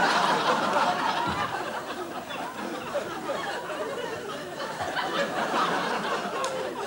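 Theatre audience laughing together, loudest at the start and then carrying on steadily.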